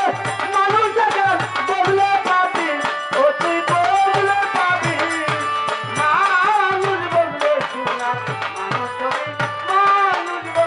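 Man singing a Bengali Baul folk song into a microphone, with drum accompaniment keeping a steady beat.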